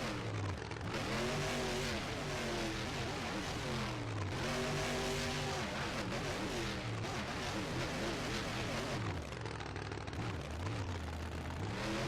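A vehicle engine revving up and down over and over, its pitch rising and falling every second or two.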